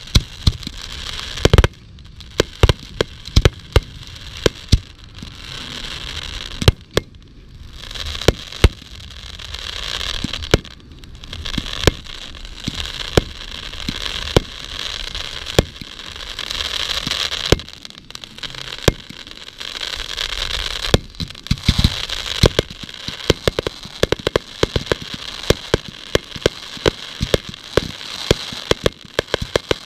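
Fireworks going off: many sharp bangs of shells bursting, at irregular intervals, over a dense crackling that swells and fades in waves.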